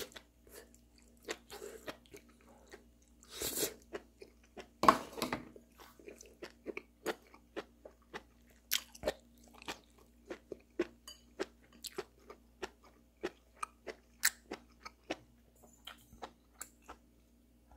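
A person chewing steamed beef tripe close to the microphone: an irregular run of crunching chews and mouth clicks, loudest about five seconds in.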